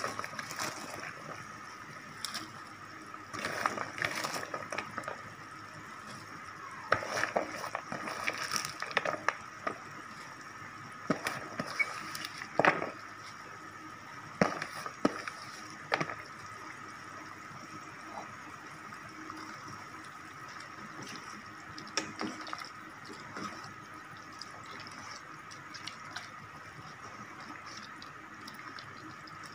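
A pot of tom yam soup simmering, with liquid sounds, and a metal ladle clinking and scraping against the stainless steel pot in short bursts during the first half, as shredded cabbage is stirred into the broth. It is quieter after that, with one more knock a little past the middle.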